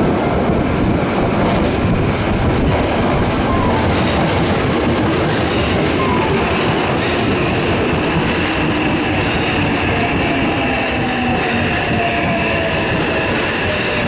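Electric train running on rails: a loud, steady rumble of wheels and motors, with a high steady whine joining about five seconds in and faint tones slowly falling in pitch toward the end.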